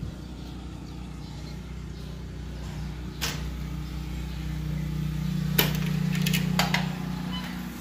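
A few sharp clicks and knocks of a screened window's frame and latch being handled, over a low steady hum that grows louder in the middle and fades near the end.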